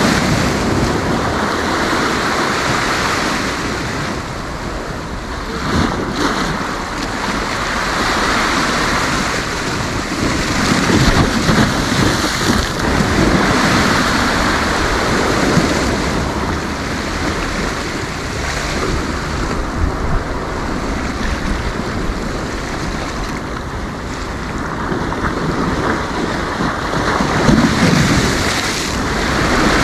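Sea waves breaking and washing up the beach, a continuous surf rush that swells and eases every few seconds, with wind buffeting the microphone.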